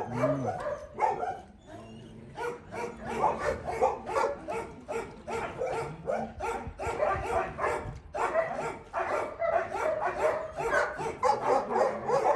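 Several dogs barking and yipping rapidly over one another, with a brief lull about two seconds in.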